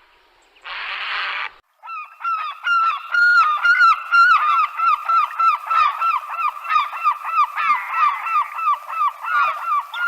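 A short noisy burst about a second in. Then many overlapping animal calls, each a brief pitched note, repeated rapidly several times a second and continuing without pause.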